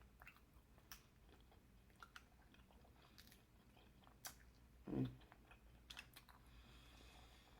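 Close-up mouth sounds of a person chewing food, with faint wet clicks scattered through and one louder, lower mouth sound about five seconds in.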